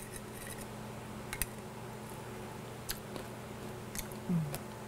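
Quiet tasting: a few faint clicks of a metal spoon against a ceramic bowl and soft chewing of a spoonful of salsa, then a brief low hum of the voice near the end.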